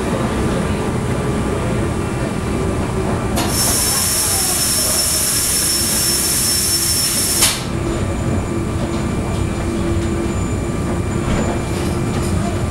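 Electric rack-railway train running uphill, a steady rumble of wheels and rack gear. About three and a half seconds in, a high squeal sets in and cuts off sharply some four seconds later.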